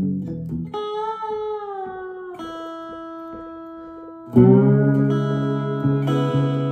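Electric lap steel guitar played with a slide bar: a note glides downward in pitch and fades, a single note is held, then a loud chord is struck a little after four seconds in and rings on.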